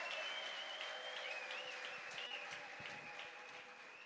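Congregation clapping and applauding, with a high, wavering tone held above the clapping; the applause dies down toward the end.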